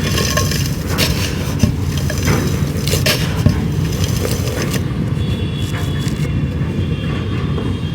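Crumbly material, likely dried clay, being crushed and crumbled by hand: a run of dry crunching crackles that thins out after about five seconds, over a steady low rumble.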